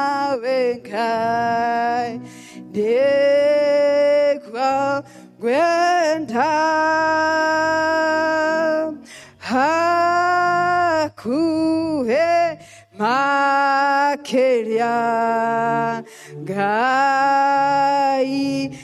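A woman singing a slow prayer song into a microphone, in long held notes with short breaks between phrases, over a soft instrumental accompaniment. It is sung in another language, which she says the congregation will not understand.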